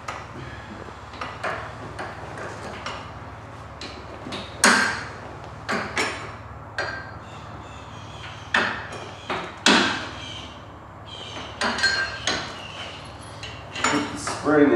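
Irregular metal clanks and clinks, some ringing briefly, as a golf cart's steel rear leaf spring and a new bolt are worked into the spring's front pivot mount.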